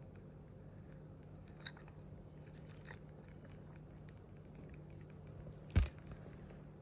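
Faint scattered clicks and fizz from a freshly opened can of non-alcoholic beer as it is drunk, then a single dull thump a little before the end as the can is set down on the wooden table.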